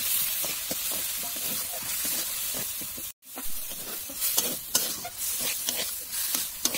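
Masala sizzling in hot oil in a metal kadhai while a metal spatula scrapes and stirs it. The sound breaks off suddenly about three seconds in; after that, chopped banana flower is stirred into the frying masala with quicker, sharper scrapes of the spatula against the pan.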